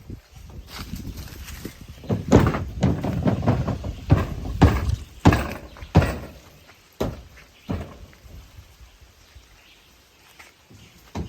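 A series of irregular knocks and thuds, closely spaced in the middle and thinning out towards the end, over a low rumble.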